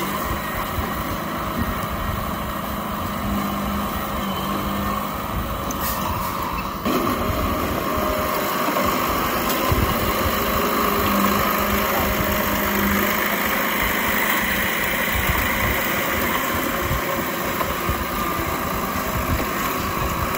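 Old Komatsu D31P bulldozer's diesel engine running steadily as it pushes soil into water, a little louder from about seven seconds in.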